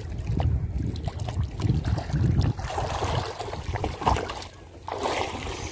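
Seawater sloshing and splashing around a person wading chest-deep, with wind rumbling on the microphone. There is a brief quieter moment about four and a half seconds in.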